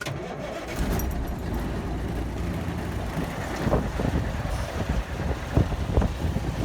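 Truck engine running steadily with a low rumble, with a few sharp knocks or rattles about four, five and a half and six seconds in.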